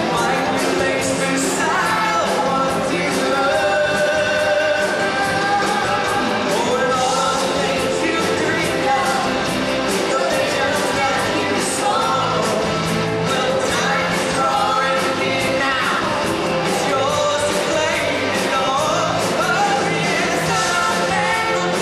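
Rock band playing live with singers on vocals, the drums keeping a steady beat.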